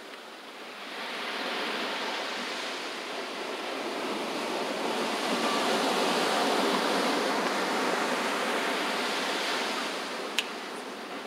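Pacific surf breaking and washing up a sandy cove against rocks: a rushing that swells over a few seconds and then eases off. There is one sharp click near the end.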